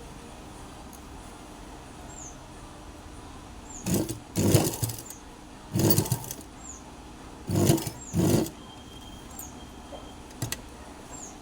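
Sewing machine stitching in five short runs, each well under a second, over a steady low hum.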